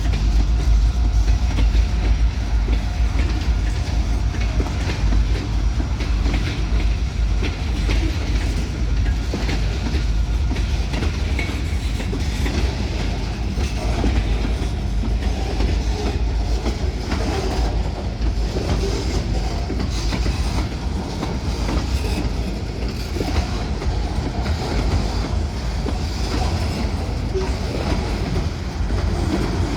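Train cars rolling past: a steady low rumble with the wheels clicking and clacking over the rail joints.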